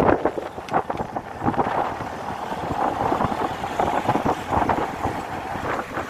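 Wind buffeting the microphone on an open, moving vehicle, a rough fluttering noise over a low rumble of the ride.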